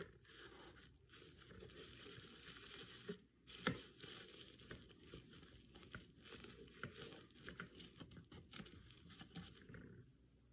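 Faint crinkling and rustling of tissue paper being tucked in and pressed down around a plastic jar coated in Mod Podge, with a few light taps from handling. The rustle dies away just before the end.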